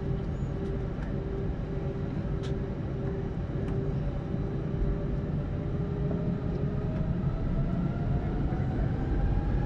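Jet airliner engines heard from inside the cabin while taxiing before takeoff: a steady low rumble, with a whine that rises gradually in pitch from about halfway through as the engines spool up.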